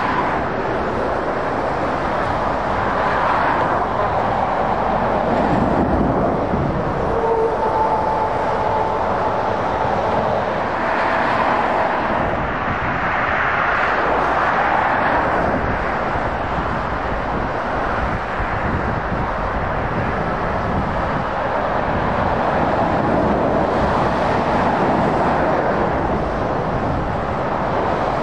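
Steady motorway traffic: heavy lorries and cars passing, a continuous rush of tyre and engine noise that swells and fades as each vehicle goes by.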